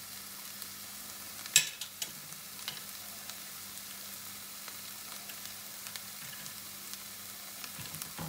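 Spice paste of onion, ginger, garlic and chili sizzling gently in butter and oil in a nonstick pan as spices are stirred in with a wooden spatula. A sharp tap sounds about a second and a half in, with a few small scrapes and clicks after, over a steady low hum.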